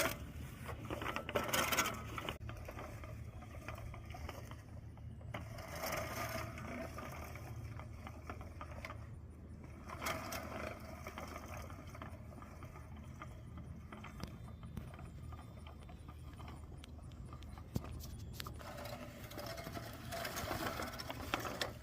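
Craftsman manual push reel mower running through grass: its spinning reel blades make a steady run of fine clicks over a low hum, rising and easing a few times as it is pushed.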